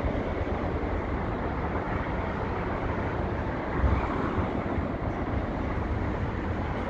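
Wind buffeting the microphone over a steady distant rumble, with a brief stronger gust about four seconds in.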